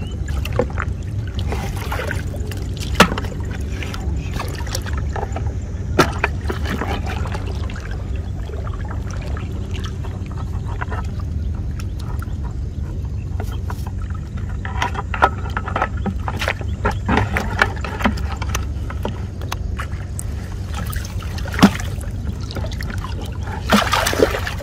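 Water splashing and sloshing around a net fish trap and a plastic bucket as the catch is shaken from the net into the bucket, over a steady low rumble. Sharp knocks come a few times, and the splashing grows louder near the end.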